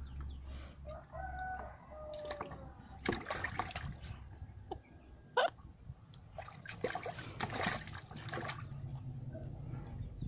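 Small hands splashing and slapping water in a plastic basin, in bursts about three seconds in and again around seven to eight seconds. A rooster crows in the background about a second in.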